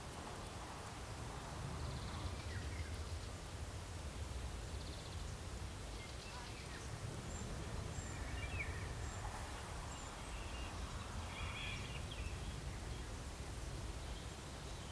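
Outdoor ambience: a steady low rumble with faint, scattered high chirps of small birds, a few more of them in the middle stretch.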